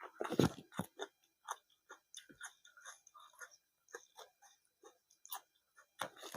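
Close-miked chewing of crunchy raw snow peas. A few loud crunches in the first second give way to irregular softer crunches and mouth clicks, with louder bites again near the end.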